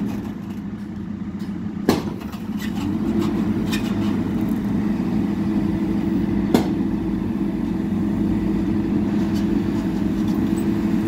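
JCB backhoe loader's diesel engine running steadily while it digs, easing off briefly near the start. Two sharp knocks come about two seconds in and again about six and a half seconds in.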